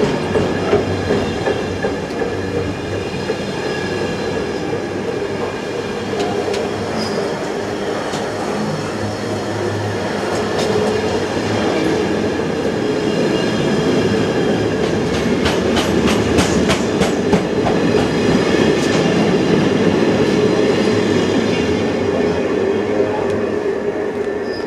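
Container wagons of an intermodal freight train rolling past close by, their wheels clicking over the rail joints over a steady ringing tone. The sound cuts off suddenly at the end.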